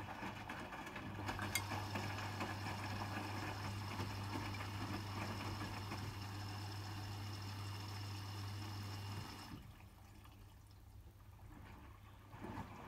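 Hotpoint WMFUG 942 washing machine topping up with water during its rinse: water running in with a steady low hum. Both stop suddenly about three-quarters of the way through.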